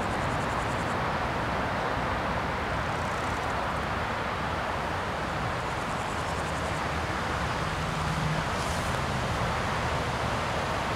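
Steady rushing outdoor background noise with a low rumble underneath.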